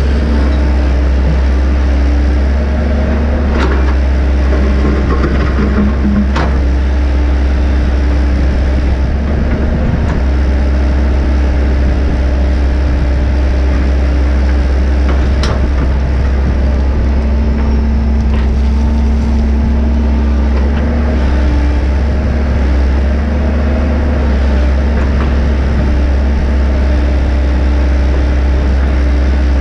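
Tracked excavator's diesel engine running under load, a deep steady drone with a hydraulic whine that comes and goes and shifts pitch as the boom, bucket and slew are worked. A few sharp knocks and cracks, about three in all, from the bucket digging into stony soil.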